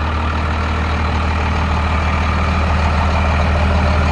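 First-generation Dodge Ram 250 Cummins turbo diesel idling steadily, its exhaust dumping just ahead of the rear axle, growing a little louder toward the end.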